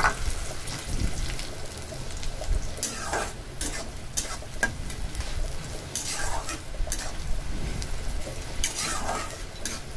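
Chopped onions sizzling steadily in hot mustard oil in a metal kadai, being fried until golden. A metal spatula stirs them, scraping and knocking against the pan several times.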